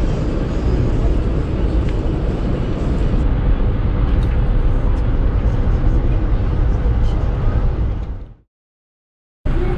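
Steady low rumble and rushing noise of an Amtrak train running. It fades out about eight seconds in, falls silent for about a second, then comes back.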